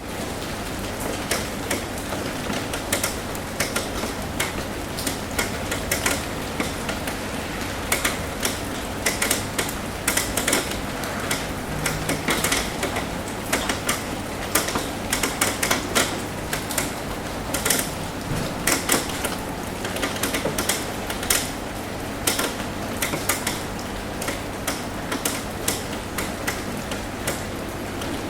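Rain falling on a roof: many irregular, sharp drip taps over a steady hiss of rain.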